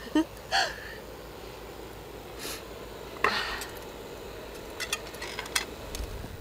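A small camping gas lantern and its chain handled on a wooden table: light clicks and knocks, with two short squeaks and a brief hiss.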